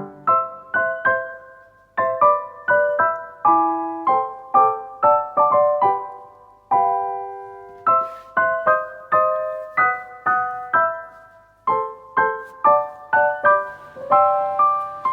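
Background piano music: a gentle melody of single struck notes over a simple lower accompaniment, with short pauses between phrases.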